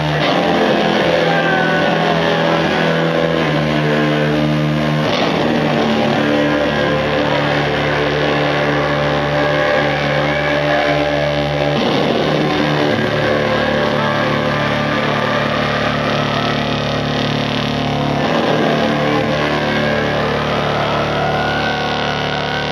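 Loud live instrumental rock from a trio of bass guitar, drums and baritone saxophone: a dense, steady wall of sound with long low notes that change pitch every second or two.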